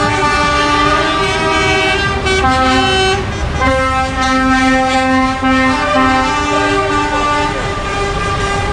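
Truck air horns sounding in long held blasts, several tones at once, over the low rumble of passing trucks' diesel engines. The horn chord shifts in pitch a couple of times, and the longest blast runs from about four seconds in to past seven.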